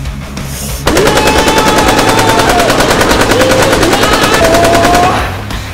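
Rapid automatic gunfire sound effect: an even, fast stream of machine-gun shots that starts suddenly about a second in and runs for about four seconds before tailing off, with a wavering pitched sound beneath it.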